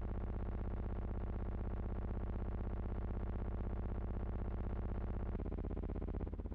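A steady buzzing hum, rich in overtones, that shifts in tone about five seconds in and again near the end. No gun report is heard.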